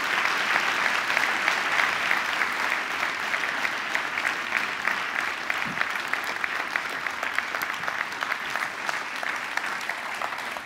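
Large audience applauding, a dense clatter of many hands clapping that eases off slightly toward the end.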